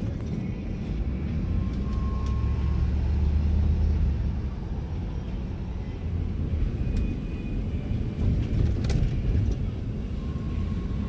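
Shuttle van driving, heard from inside the cabin: a steady low engine and road rumble that swells a couple of seconds in and eases off again.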